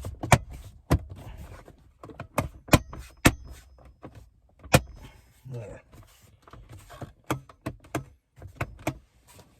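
Hard plastic clicking and knocking as the inner panel of a center console lid is pushed and snapped into its tabs on the cover: many sharp, irregular clicks.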